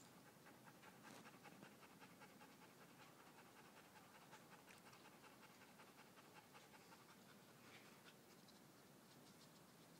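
A dog panting: faint, quick, even breaths that weaken near the end.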